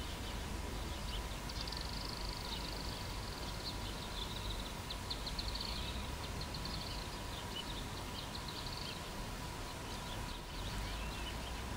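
Small birds chirping and twittering in quick runs for most of the clip, over a steady low rumble of outdoor background noise.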